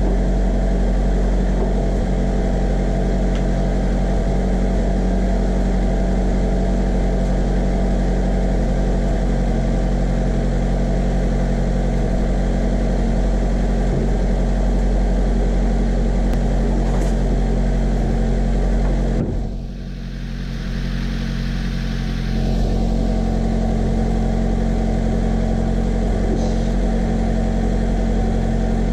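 Subaru Sambar kei truck's engine idling steadily, run during air bleeding of the cooling system after a coolant leak repair. About twenty seconds in, the sound briefly dips and a rush of noise lasts a few seconds.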